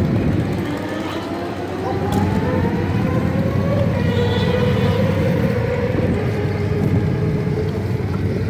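Many motorcycle engines idling together in a line-up, a steady low hum, with one engine rising slowly in pitch over the first few seconds as it is revved or pulls forward.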